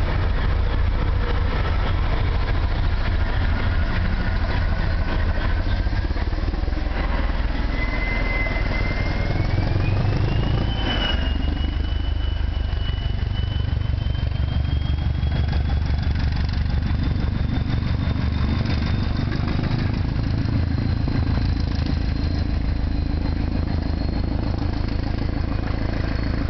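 Northern Ireland Railways Class 450 'Castle' DEMU pulling away under power: its English Electric diesel engine runs with a steady, pulsing thump, under a thin whine that climbs slowly in pitch as the train gathers speed. A single short knock comes about eleven seconds in.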